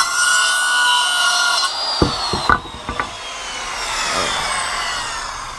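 Circular saw cutting through a 2x12 board, then a few knocks as the cut finishes, and the blade spinning down with a slowly falling whine. The blade is dull: it smokes in the cut and leaves a rough edge.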